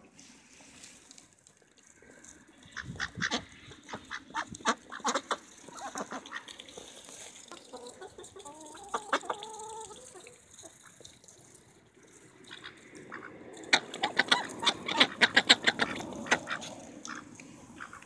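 Ducks and chickens feeding at a trough: bursts of quick pecking and dabbling clicks, the densest and loudest run coming a little after halfway and lasting a couple of seconds, with a short pitched call around nine seconds in.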